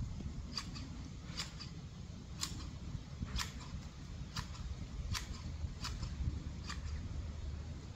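Large hand-held garden shears snipping bush branches, a sharp click with each cut, about one cut a second over a low rumble.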